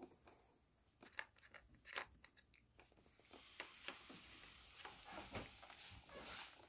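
A cat faintly chewing and crunching a treat, in short irregular crunches starting about a second in.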